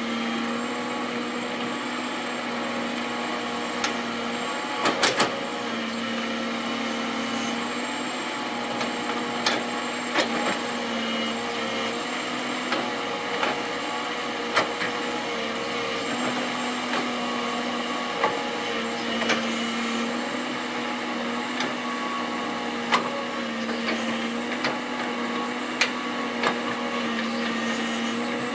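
Heavy earthmoving machinery running steadily, a diesel engine and hydraulic drone whose pitch swells and eases in long stretches. Sharp metallic knocks and clanks come every few seconds.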